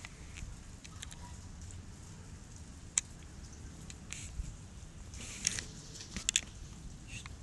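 Hail falling: a steady hiss with scattered sharp clicks of hailstones striking hard surfaces, a few louder ones past the middle.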